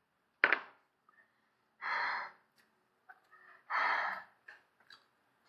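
Sharp, wordless breaths hissed in and out through the mouth, a reaction to the burn of very spicy noodles: a sudden sharp breath about half a second in, then two longer breaths around two and four seconds in.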